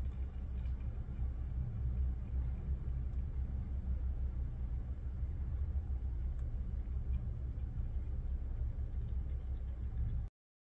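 Small electric motor of a rotating display turntable running with a steady low hum, cutting off suddenly near the end.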